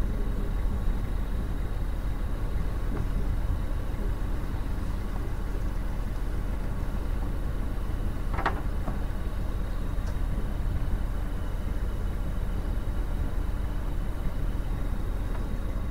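Narrowboat's diesel engine running steadily, with one short sharp squeak about halfway through.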